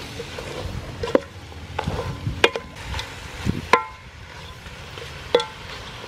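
Wooden spoon stirring chunks of chicken in curry paste in a large aluminium pot, with the wet scrape of the meat and four sharp knocks where the spoon hits the pot, each leaving a brief metallic ring.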